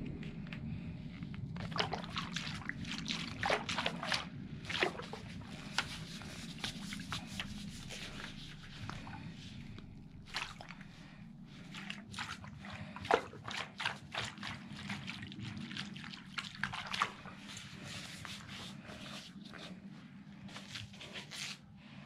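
Hands squeezing and rubbing bear-shaped rubber balloons: many short fingernail clicks and rubbery squeaks with a squishy sloshing, over a steady low hum.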